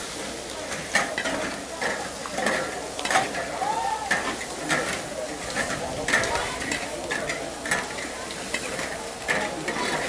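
Several cooks stir-frying vegetables in large iron woks with long metal spatulas: repeated scraping clanks of metal on iron, irregular and roughly once or twice a second, over a steady sizzle of frying food.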